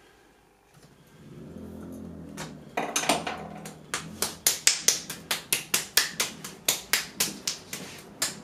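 A fast, even run of sharp hand slaps, about four a second and some twenty in all, starting about three seconds in after some soft shuffling.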